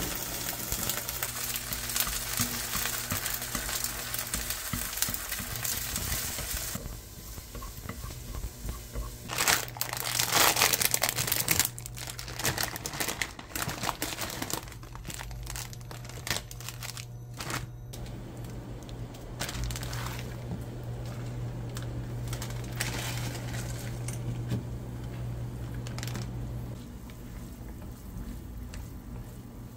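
Eggs sizzling in oil in a frying pan. Then, after a cut, a plastic instant-ramen packet crinkling loudly as it is torn open, followed by scattered rustles and taps as the noodle block and foil seasoning sachets are handled. Near the end, noodles boiling quietly in a small pot, over a steady low hum that stops shortly before the end.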